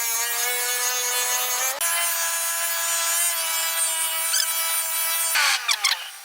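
An electric power tool runs with a steady motor whine over a grinding, rubbing hiss, as in sharpening a blade. The whine steps up in pitch about two seconds in, then falls away near the end as the motor winds down.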